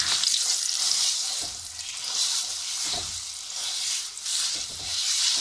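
Ground urad dal paste sizzling in hot oil in a metal kadhai as it is stirred and scraped round the pan. The hiss swells and fades with each stroke, with a few light knocks of the utensil against the pan.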